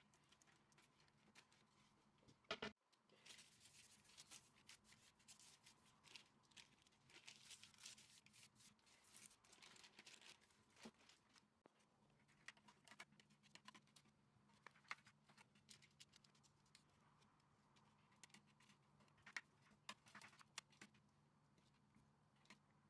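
Faint kitchen handling sounds: a single knock about three seconds in, then soft crinkling of baking paper and scraping as cookie dough is pressed into a metal baking tray, with scattered small ticks.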